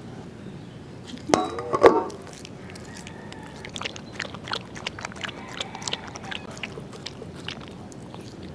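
Small dog lapping milk from a stainless steel bowl: a run of quick, irregular wet licks. Before it, about a second and a half in, there is a brief voice-like sound.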